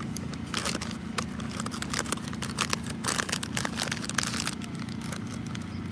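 Irregular crinkling and crackling close to the microphone, many short sharp clicks, over a steady low background hum.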